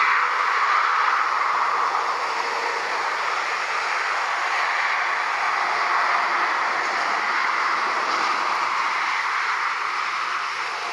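Steady roar of distant motorway traffic mixed with the jet engines of a Boeing 787 airliner taxiing at low power. No single event stands out, and the noise eases slightly near the end.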